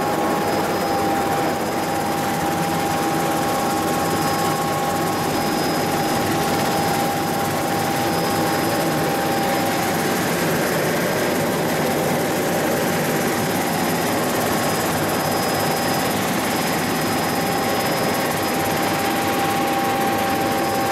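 Helicopter engine and rotor running steadily under power, heard from inside the cabin, with a constant high whine over the noise, as the helicopter flies low over the ground and climbs away.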